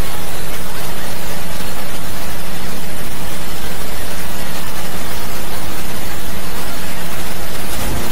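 A loud, dense, steady wash of noise with a low rumble underneath: many video soundtracks layered on top of one another until no single sound stands out.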